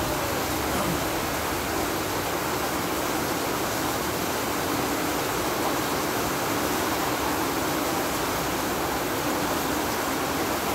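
Heavy tropical-storm rain pouring down steadily, an even, unbroken hiss.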